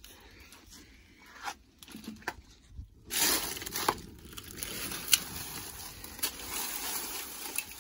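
Dry grass and leaves crackling and crunching. There are a few scattered clicks at first; from about three seconds in it turns into a denser steady rustle broken by sharp cracks.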